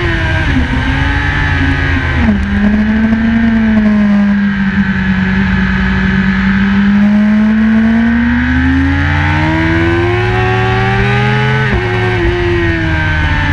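BMW S1000RR's inline-four engine running hard on a race track, heard from an onboard camera. Its pitch drops sharply a couple of seconds in, holds steady, then climbs for several seconds under acceleration before another sudden drop near the end as it changes gear.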